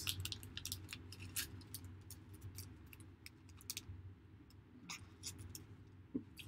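Faint clicks and rustles of a trading card being handled and slid into a clear plastic sleeve. The clicks come thick and fast for about four seconds, then only a few more, over a steady low hum.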